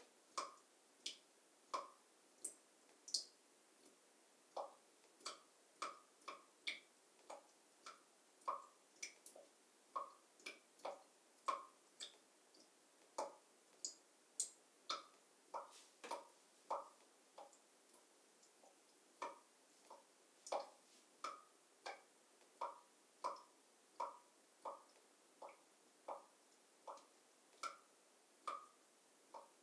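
Water dripping from a shower after it has been turned off: single drops landing at an uneven pace of about one to two a second, each a short pitched plink of varying loudness.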